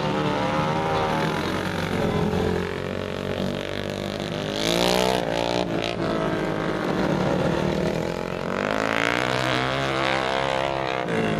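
Dirt-track racing motorcycle engines revving up and down as they lap the track, rising and falling in pitch, loudest about five seconds in and swelling again near the end.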